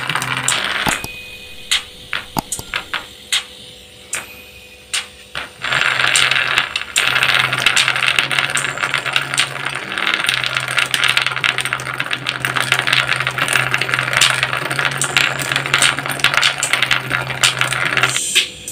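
Small electronic parts set on the cones of two small speakers rattle and buzz as a homemade TDA2822 amplifier drives the speakers with a steady low bass tone, starting about five seconds in. Before that, a few light clicks as the parts are placed on the cones.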